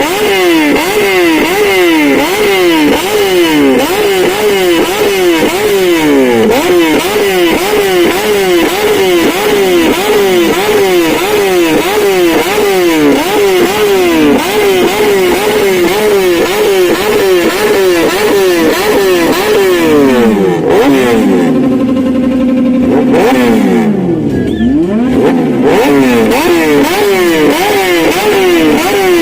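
Yamaha FZ1 motorcycle engine being revved over and over, the pitch climbing and dropping in quick repeated throttle blips. About two-thirds of the way through it drops back to a steady idle, takes one rev, then the quick revving starts again.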